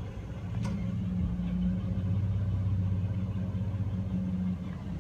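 A steady low mechanical hum, like an engine or motor running at idle, with a faint click about a second in.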